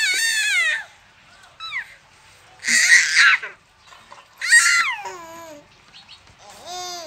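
Infant squealing and babbling in about five short, high-pitched bursts, one about five seconds in sliding down in pitch.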